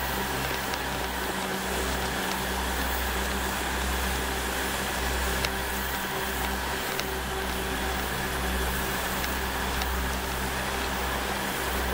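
Quadcopter's electric motors and propellers running steadily, with a steady hum of fixed tones over wind rush, as picked up by the onboard camera. The low rumble dips briefly a few times.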